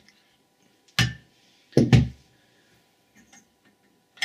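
Two thunks about a second apart as a cordless drill is set down and the infrared lamp's housing is handled, then a short click near the end.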